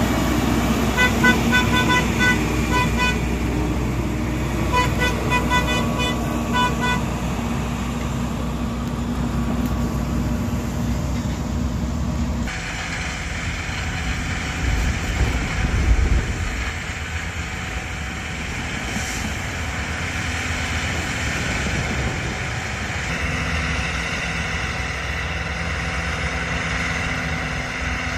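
Heavy rail maintenance machinery running, with a rapid pulsing warning beep sounding in three bursts over the first seven seconds. About twelve seconds in, the sound changes abruptly to a steady machine drone, with a brief heavy low rumble around sixteen seconds in.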